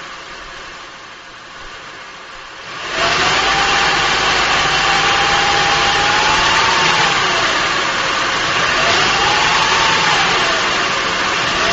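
2005 Acura TL's V6 engine running; about three seconds in it suddenly gets much louder, and a whine then rises and falls in pitch three times.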